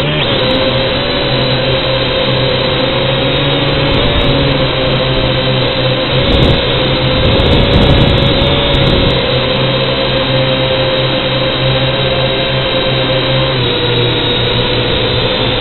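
Small camera drone's motors and propellers running with a steady high whine, heard up close from its own onboard camera. The pitch wavers slightly as it manoeuvres, with a louder stretch of rushing air about halfway through.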